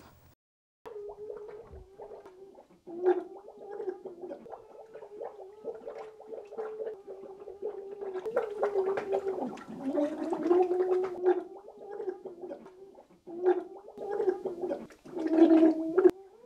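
Gargled, muffled crying and bubbling from a person whose head is held under water in a sink: a wavering, held tone broken by splutters, loudest near the end.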